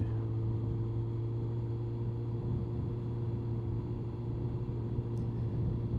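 Honda CBR1100XX Blackbird's inline-four engine running steadily at cruising speed, heard from inside the rider's helmet as a low even drone with no change in pitch.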